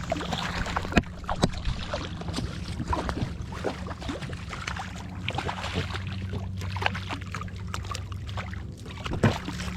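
Clicks and knocks of handling a hooked bass in an inflatable boat, over a steady low hum.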